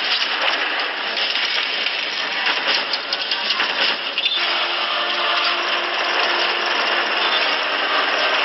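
Film sound effects: a loud, steady engine-like roar, with a low steady hum joining it about four seconds in.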